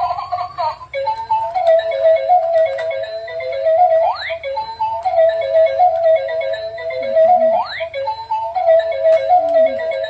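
Electronic toy tune from a battery-powered crawling baby doll's speaker: a short beeping melody that repeats about every three and a half seconds, each time ending in a quick rising whistle.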